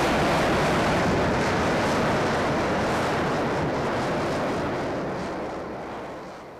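Lockheed C-130 Hercules climbing away overhead with its JATO solid-fuel rocket bottles firing alongside its four turboprop engines: a loud, steady rushing noise that fades gradually over the last few seconds as the aircraft pulls away.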